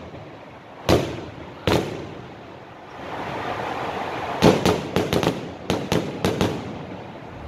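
Aerial fireworks going off: two loud bangs a little under a second apart, then a rising rush and a rapid run of crackling reports about halfway through.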